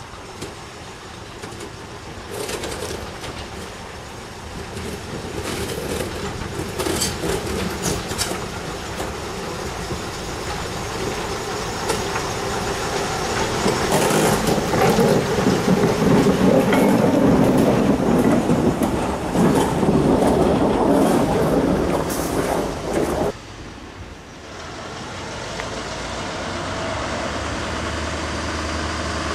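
British Railways Class 03 diesel shunter running with its train as it approaches and passes close by, wheels clicking over the rail joints; it grows louder and is loudest as it goes past. About three-quarters of the way through it cuts off suddenly, giving way to the quieter, steady idle of another diesel shunter standing further off.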